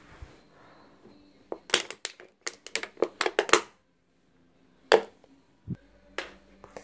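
A quick run of sharp clicks and crackles, then a single sharp click and a low knock, from things being handled and bumped at close range.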